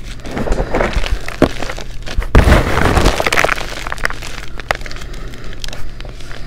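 Blocks of gym chalk (magnesium carbonate) crunching and cracking as gloved hands crush them into crumbs and powder. A dense, loudest run of crunching comes about two and a half seconds in, thinning to scattered crackles toward the end.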